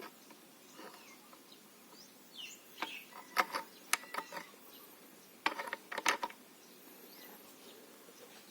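Sharp metal clicks and clacks from the mechanism of a homemade 8 mm PCP air rifle as its cock-and-hold action and pellet loader are worked by hand. The clicks come in two quick clusters, a few seconds apart.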